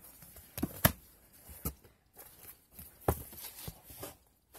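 A handful of short, sharp knocks and thuds with light rustling in between, from books being handled and shifted about.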